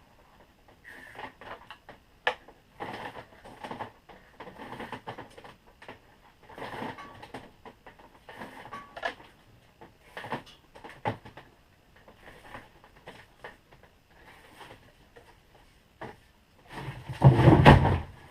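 Intermittent scraping, rustling and sharp clicks of wire being pulled through a vise-mounted wire stripping tool, its blades slitting the insulation. A much louder burst of handling noise comes near the end.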